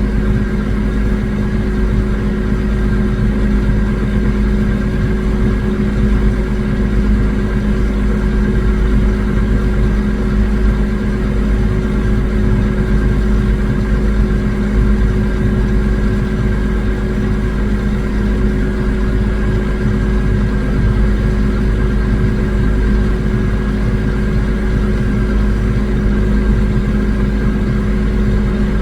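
Swather engine and machinery running at a steady pace while swathing, a constant drone with a thin steady whine above it.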